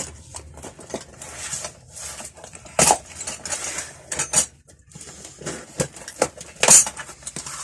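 Metal hand tools clinking and knocking together as a parcel of tools is unwrapped and handled, with irregular clicks and the rustle of packaging; the loudest clanks come about three seconds in and again near the end.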